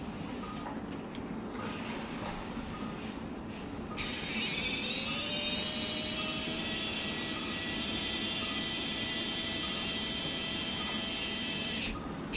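High-speed surgical drill whining as it drills a hole through bone. It starts about four seconds in, rising in pitch for about a second as it spins up, then runs steadily for about eight seconds and stops abruptly near the end.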